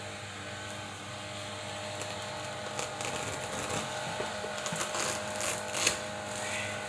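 A tyre plug kit's reamer tool being worked into a screw puncture in a car tyre's tread to clean the hole: irregular rough scraping and clicking that grows busier after about two or three seconds, over a steady low hum.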